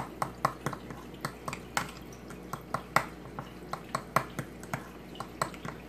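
A metal utensil clinking against a small glass bowl as thick brown gravy is stirred, in quick irregular clicks, several a second.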